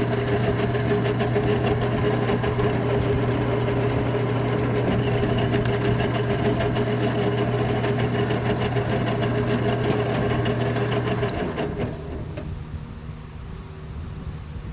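Small Jet metal lathe running under power with its change-gear train engaged for threading: a steady motor hum with a fast, fine rattling tick over it. It shuts off about eleven and a half seconds in.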